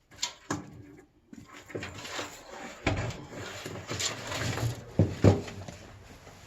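Irregular clicks, rattles and knocks of computer parts and case pieces being handled and fitted, with a few sharper knocks about three seconds in and again around five seconds.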